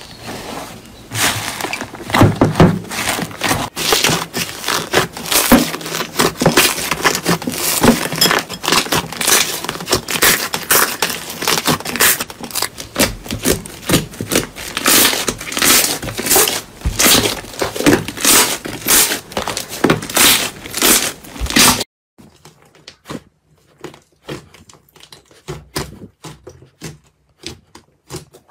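Hands poking and squeezing foamy slime in a bowl: a dense run of crackles and small pops. About three-quarters of the way through it cuts off suddenly, leaving only faint, sparse clicks of slime being handled.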